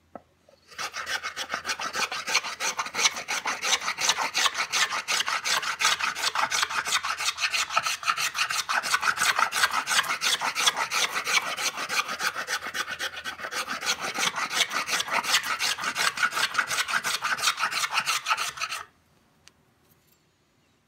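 Small boxwood luthier's plane cutting shavings from a wooden board in rapid back-and-forth strokes, several a second, each a short rasping cut. The planing stops suddenly near the end.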